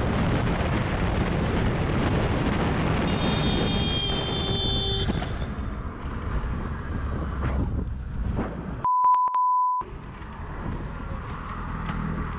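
Motorcycle riding along, its engine running under heavy wind noise on the helmet-mounted microphone. About nine seconds in, a steady beep tone cuts in for about a second, replacing the ride sound.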